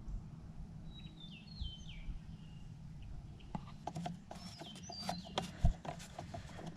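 Small birds chirping outdoors, a few short falling chirps, over a steady low background rumble. About halfway through, a run of light clicks and knocks begins, likely tools or parts being handled at the engine.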